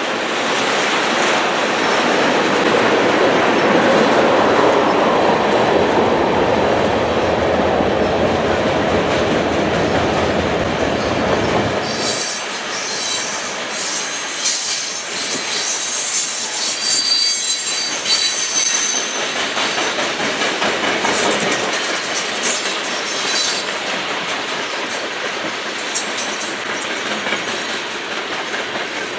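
Freight cars of a mixed freight train rolling past, with a steady rumble and rattle of steel wheels on the rails. About twelve seconds in, a high-pitched squeal of steel wheels on the rail starts and lasts about ten seconds over the rolling noise.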